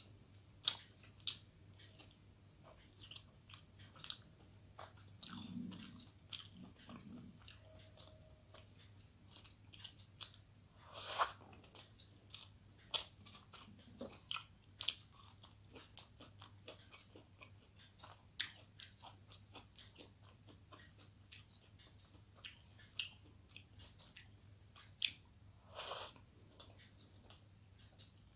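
Close-miked chewing and crunching of fried Bengali food, fried brinjal and cauliflower pakora, eaten by hand: a stream of short crunchy clicks with two louder mouth sounds, about a third of the way through and near the end.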